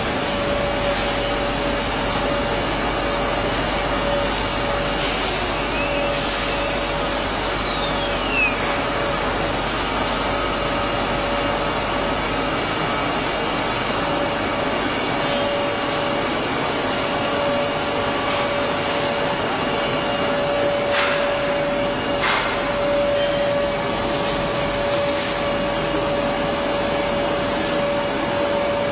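CNC wood router with automatic tool changer running steadily: a constant rushing machine noise with a steady hum-like tone through it and a few faint gliding whines early on.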